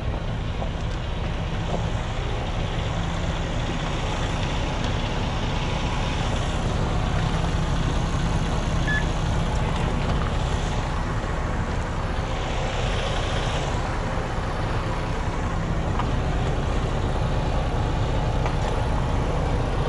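Freightliner 122SD dump truck's diesel engine idling steadily, with a soft hiss swelling and fading about ten to thirteen seconds in.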